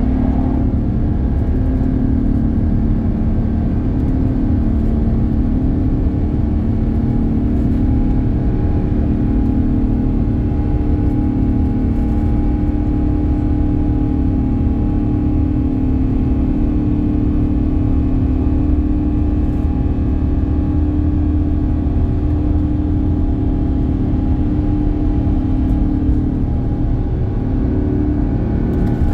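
Steady cabin drone of an Airbus A350-900: engine and airflow noise from its Rolls-Royce Trent XWB engines, with a few steady hum tones over a deep rumble.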